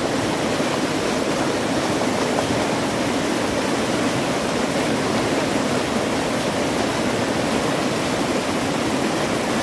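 Steady rushing of a fast-flowing mountain river, an even wash of water noise with no breaks.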